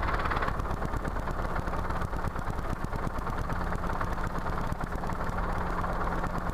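Robinson R22 helicopter's piston engine and two-blade rotor running steadily, heard from inside the cockpit during a slow, steep descent to the runway. A low, steady hum joins the drone about halfway through.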